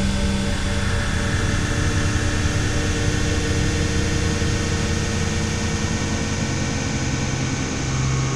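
Dark ambient electronic noise music: a dense, steady drone of hiss and low rumble with several sustained tones held through it, one brighter band rising in a little after the start.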